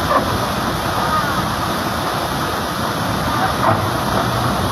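Steady rush of river water pouring over a log weir, with a Komatsu excavator's diesel engine running underneath as it wades through the river.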